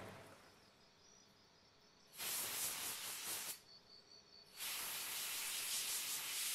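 Hissing spray in two bursts, the second lasting several seconds.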